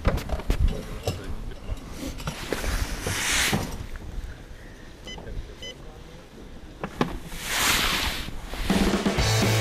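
Two short electronic beeps from a Humminbird Helix fish finder as its buttons are pressed at start-up, amid knocks of gear handling and two swells of rushing noise. Rock music comes in near the end.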